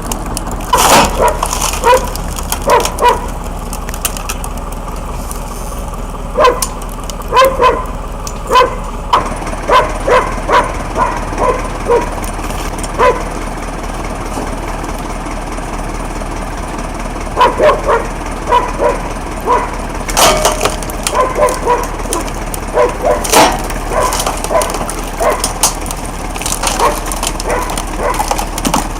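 Log-splitting machine running with a steady low hum while wood cracks and splinters in repeated short, sharp bursts, some in quick pairs.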